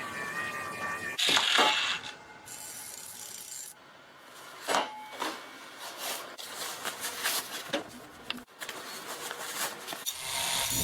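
Irregular clicks, clinks and scrapes of metal tools and parts being handled on a workbench, with a brief metallic ringing in the first second.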